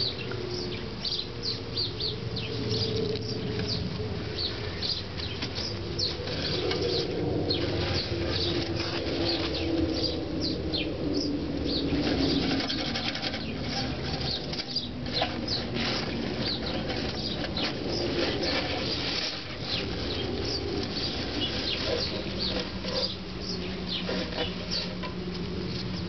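Rustling and crackling as a clear plastic container and the camera are moved and brushed through leafy plants, with many irregular small ticks and a low rumble of handling noise.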